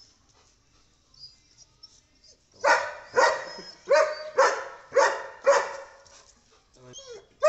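German shepherd barking: about six loud barks in quick succession, roughly two a second, starting about two and a half seconds in, then a pause before barking starts again at the very end.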